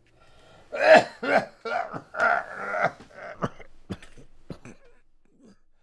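An old man coughing and clearing his throat: a run of about five harsh coughs, followed by a few short clicks.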